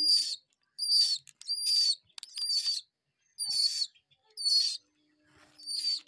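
Young pigeon squabs in the nest calling: a run of about seven short, high-pitched peeping squeals, nearly once a second.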